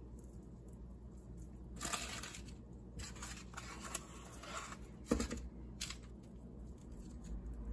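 A few scratchy scrapes of a plastic spoon scooping icing from a foam plate, with paper rustling as the muffins are handled in their paper liners; a sharper scrape or knock about five seconds in.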